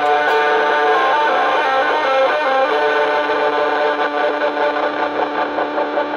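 Distorted electric guitar through effects, a chord and notes held and ringing on. About four seconds in, the sound starts to waver and pulse as it rings out.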